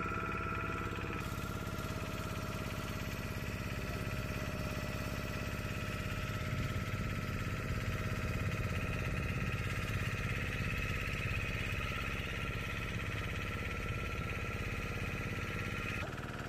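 Motor boat's engine running steadily.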